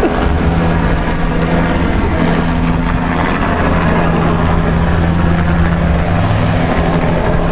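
A motor vehicle's engine running, a loud, steady low drone with a constant hum.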